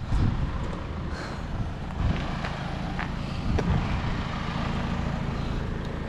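Low rumble of handling and wind noise on a handheld camera carried while walking, with a few light clicks or taps.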